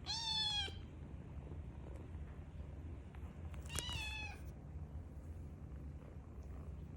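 Kitten meowing twice: two short, high calls about three and a half seconds apart, each falling slightly in pitch.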